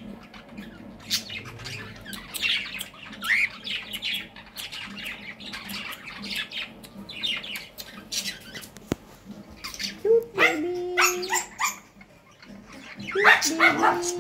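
Caged cockatiel chirping and squawking in a run of short calls, with two longer, louder calls about ten and thirteen seconds in.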